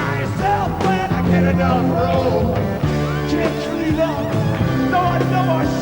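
Live rock band playing an instrumental stretch: held bass notes under a bending melodic lead line.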